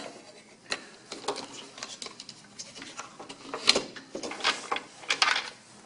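Plastic humidifier water chamber being handled and set onto a Fisher & Paykel heater plate: scattered light clicks, knocks and rustles, the sharpest click about two thirds of the way through.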